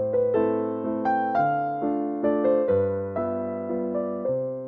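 Background piano music: single notes and chords struck at a gentle, even pace, each ringing and fading.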